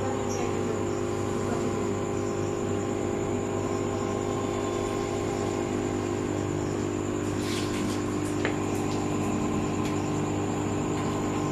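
Steady electric hum of an aquarium pump, a low buzz with several steady tones over it, over faint bubbling from the air line. A few light clicks come about seven to nine seconds in.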